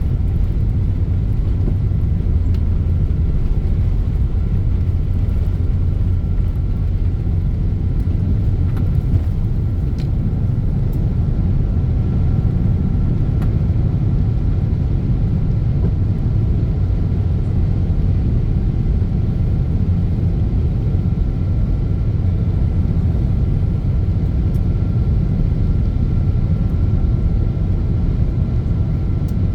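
Airplane engines during takeoff: a steady low rumble with a faint high tone held above it.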